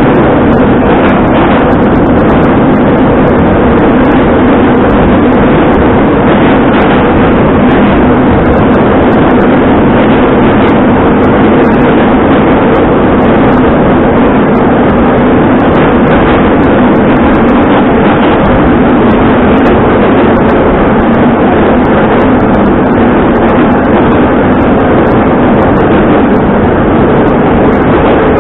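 Metro train running at speed through a tunnel, heard from inside the car: a loud, steady rumble of wheels on rail and tunnel noise with a steady drone under it.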